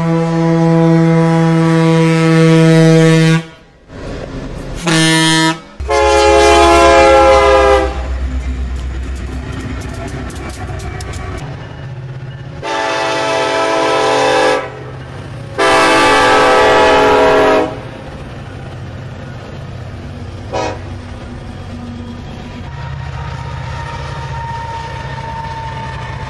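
Diesel locomotive air horns blowing a series of blasts: a long one, a short one, another long one, then two long ones about a second apart, over the running noise of passing trains. The last several seconds are a freight train's steady low rumble as it rolls by.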